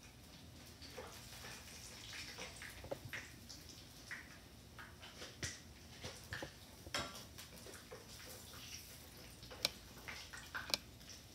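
Conch fritters frying in a wok of hot oil: a faint sizzle with scattered small pops and crackles, and a few sharp clicks of metal tongs against the wok near the end.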